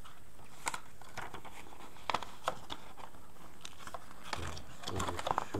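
Paper rustling and crinkling, a scatter of short crackles and taps, as a folded paper user manual is handled and unfolded.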